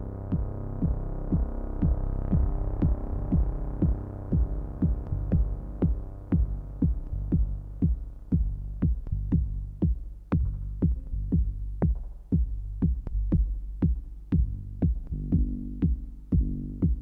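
Electronic dance music from a live synthesizer and drum-machine set: a steady kick drum at about two beats a second under a sustained low synth pad. The pad thins out about halfway, leaving the beat and sharp clicks, and a new synth line comes in near the end.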